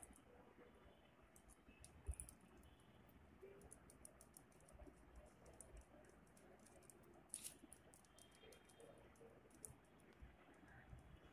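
Faint scraping and clicking of a block of cheese being grated on a flat hand grater over a steel plate, mostly near silence, with two slightly louder clicks about two seconds in and about seven seconds in.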